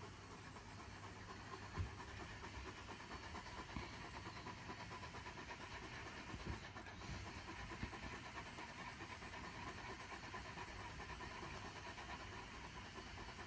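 Great Pyrenees panting steadily with its tongue out, cooling itself after a walk on a hot morning. A soft knock comes about two seconds in.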